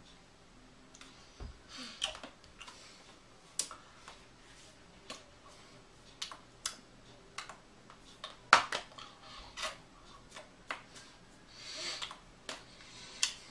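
Hands clapping and tapping against each other in quick, irregular claps during signing, the loudest about eight and a half seconds in, with a couple of breathy puffs of breath.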